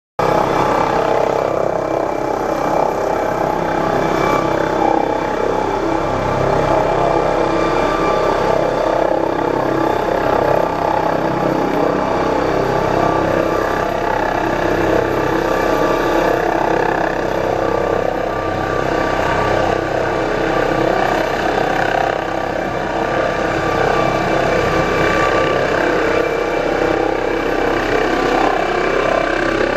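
MD900 Explorer NOTAR helicopter's twin turbine engines and main rotor running steadily as it runs up for takeoff, with a loud, even whine.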